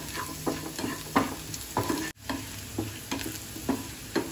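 Onion, garlic and chillies frying in ghee in a non-stick pan, sizzling steadily as a wooden spatula stirs them, the spatula scraping and tapping the pan about three times a second. The sound drops out briefly about halfway.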